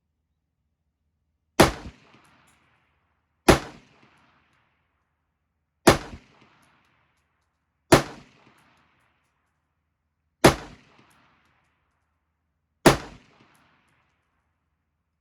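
Six single rifle shots fired one at a time, roughly two seconds apart, each a sharp crack followed by a short echo rolling off the range.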